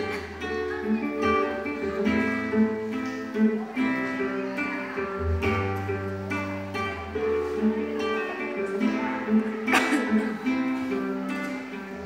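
Acoustic guitar played fingerstyle: arpeggiated chords of separately plucked notes over ringing bass notes, with a sharply strummed chord about ten seconds in.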